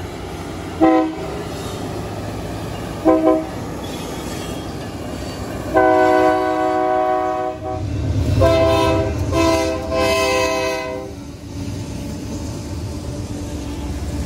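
Diesel locomotive's multi-chime air horn: two short toots about two seconds apart, then a blast of about two seconds and two more blasts close together. A low rumble from the passing train swells under the later blasts and carries on after the horn stops.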